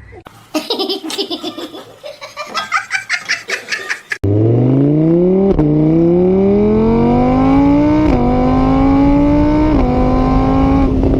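Someone laughing in short bursts. Then, a little over four seconds in, a loud car engine cuts in suddenly and accelerates hard, its pitch climbing and dropping back three times as it shifts up through the gears.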